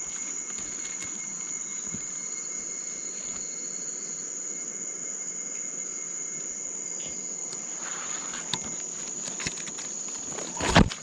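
Night insect chorus in tropical rain forest: a steady, high-pitched trill with fainter, lower tones beneath it. A few small rustles and clicks come in the last few seconds, and there is one loud bump near the end.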